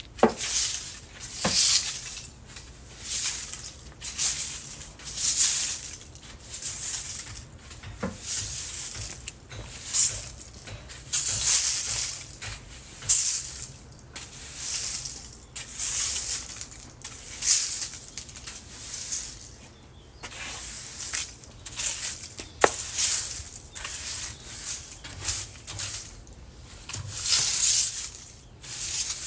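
A broom sweeping leaves: repeated swishing strokes about every second or two, with a few sharp ticks between them.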